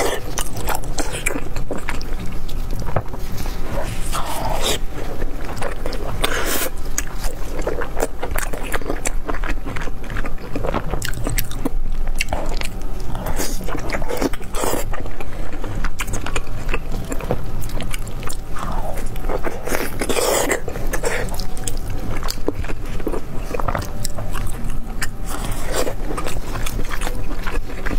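Close-miked eating: biting into, tearing and chewing sauce-glazed braised pork with gloved hands, a dense run of sharp wet clicks.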